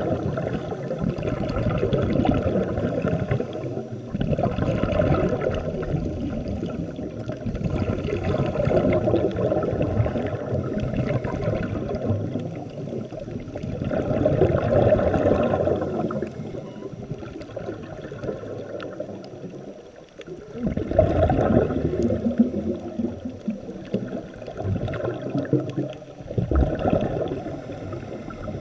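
Scuba regulators bubbling underwater as divers breathe out, a gurgling rush that swells for a couple of seconds at a time and falls back in between.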